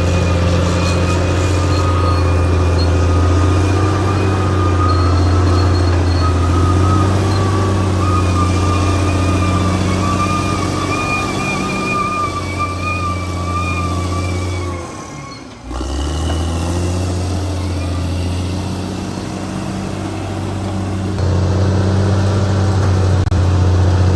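Caterpillar D6R XL bulldozer's diesel engine running with a steady low drone and a wavering high whine over it. The sound drops away sharply for a moment about two-thirds of the way in, then comes back and grows louder near the end.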